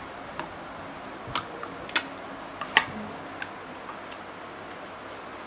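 Hands handling food, a cabbage-leaf wrap of instant noodles and fried cheese balls, giving about five sharp, short clicks and crackles spread over a few seconds, the loudest a little past the middle, over a steady hiss.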